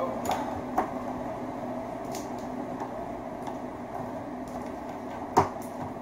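Handling noise from a length of red electrical wire being worked by gloved hands: a few light clicks and taps, with one sharper knock about five seconds in. A steady low hum runs underneath.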